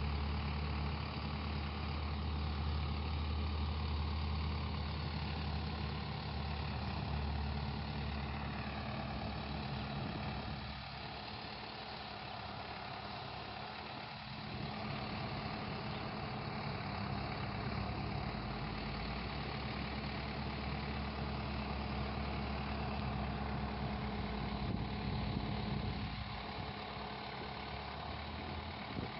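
Farm tractor's diesel engine running steadily at low revs while towing a compost turner, easing off for a few seconds partway through.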